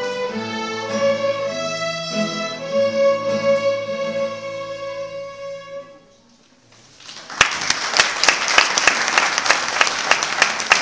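A youth string orchestra of violins plays sustained chords and ends on a long held note about halfway through. After a brief hush, the audience breaks into applause.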